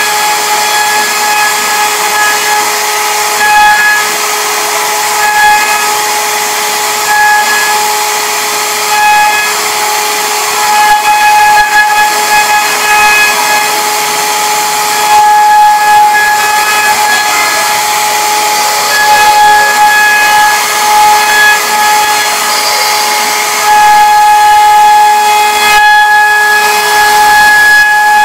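CNC router spindle running with a steady high whine while its carving bit cuts a relief into a wooden door panel, with the hiss of the cut. The whine swells and fades every second or two and is loudest near the end.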